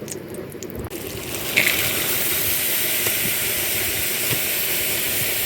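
Pre-cooked mixed vegetables dropped into a pan of hot oil and butter, sizzling. The sizzle starts with a burst about a second and a half in, then goes on steadily.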